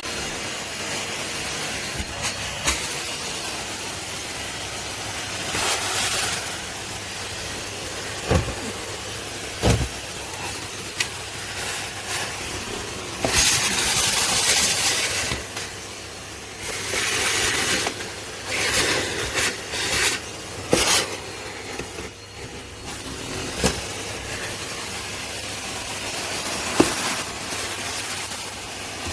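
Numatic Henry cylinder vacuum cleaner running steadily, its suction hiss surging again and again as the nozzle is worked over surfaces, with a couple of sharp knocks from the tool.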